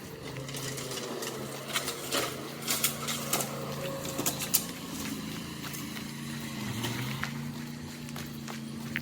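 A steady low mechanical hum, with a string of sharp clicks and taps in the first half.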